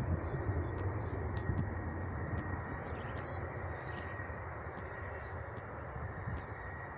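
Distant jet aircraft rumble, steady and slowly easing, with faint bird chirps above it.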